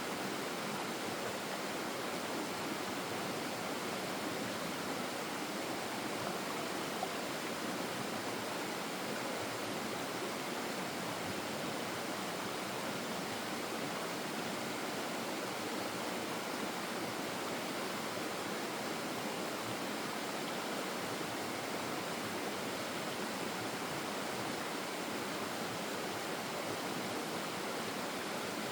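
Stream water flowing with a steady, unbroken rushing.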